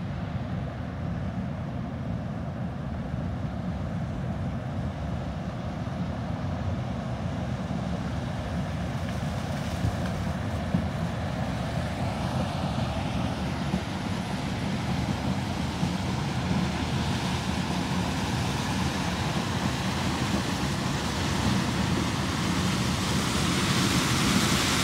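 Combine harvester running steadily while it cuts corn, a continuous low engine drone and rushing noise that grows gradually louder and hissier toward the end.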